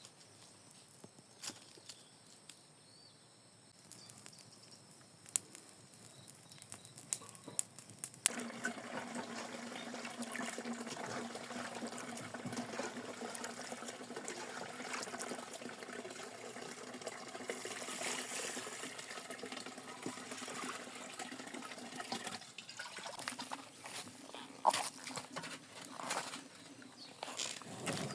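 Water running steadily. It starts suddenly about eight seconds in and dies away about twenty-two seconds in, with scattered clicks and knocks before and after.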